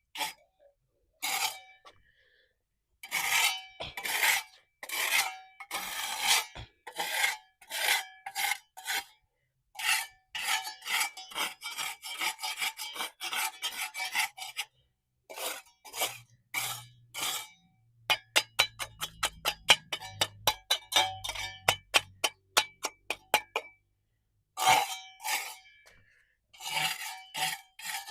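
Hand scraping of hardened mortar stuck to a concrete pool surface: repeated rasping strokes about one a second. Past the middle comes a run of short, quick strokes, several a second, then slower strokes again.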